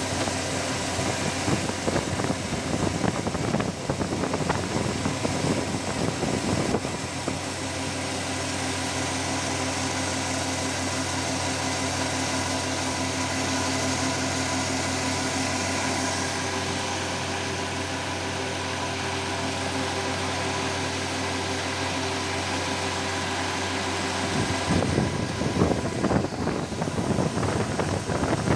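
FANUC CNC milling machine cutting a 7-series aluminium part with an end mill under flood coolant: a steady spindle hum with several held tones, over the hiss of coolant spray. The cut sounds rougher and more ragged for the first seven seconds and again from about 24 seconds in, and smoother in between.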